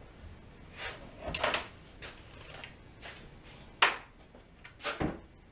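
Hands working the fittings on a plastic fishing kayak: a few soft knocks and rubs, with one sharp click about four seconds in.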